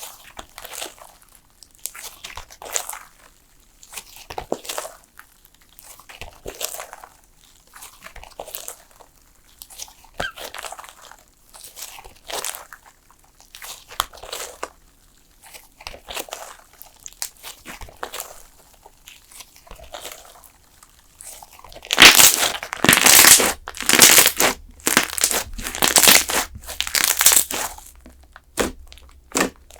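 Hands pressing, poking and stretching a thick slime, giving crackly, crunchy squishes about every second or two. The squishes grow louder and come in quick succession about three-quarters of the way through.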